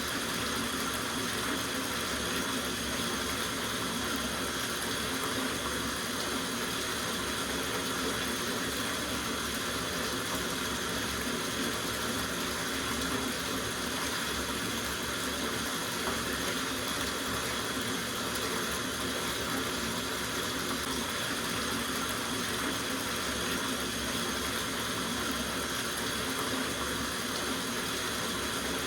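Tap water running steadily into a soaking bathtub, a constant even rush of water filling the tub.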